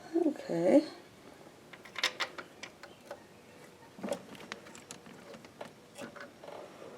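Scattered small clicks and taps as a starter mounting bolt is lined up and started by hand in the Jeep's starter mounting hole.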